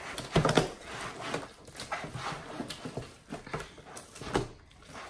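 Hands squishing and squelching a sticky mix of glue and butter slime in plastic tubs, irregular wet crackles with a few sharper squelches, one near the start and one about four seconds in.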